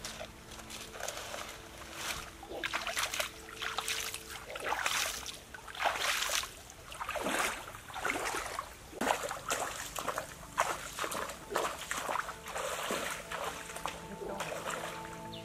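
Shallow stream water splashing and sloshing in irregular bursts as a person's hands work in the water and legs wade through it.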